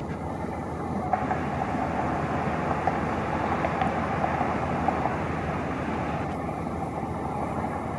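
Steady road noise of a car driving along a paved street, growing a little louder about a second in.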